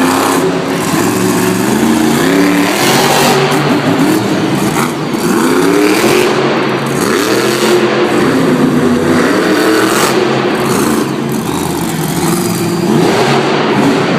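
Grinder monster truck's supercharged V8 engine revving hard through a freestyle run, its pitch rising and falling again and again as the throttle is worked.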